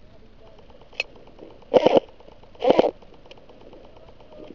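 Two short bursts of full-auto airsoft electric gun fire, each about a third of a second long and roughly a second apart, made of a rapid run of shots, after a single sharp click about a second in.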